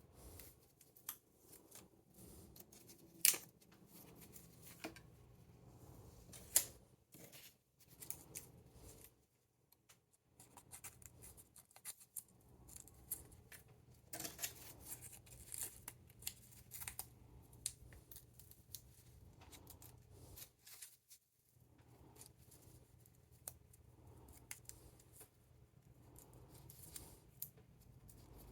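Close hand-work noises of rolling a joint: irregular snips, crinkles and rustles of cannabis and rolling paper, with two louder sharp clicks, over a faint steady low hum.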